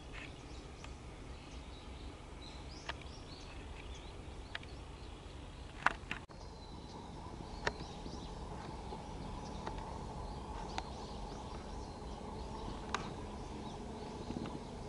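Outdoor ambience: a steady low rumble with scattered short bird chirps and a few sharp clicks. A faint steady hum comes in about six seconds in.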